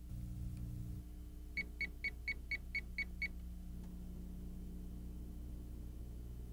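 An electronic beeper gives eight short, high-pitched beeps in quick even succession, about four a second, over a faint low hum.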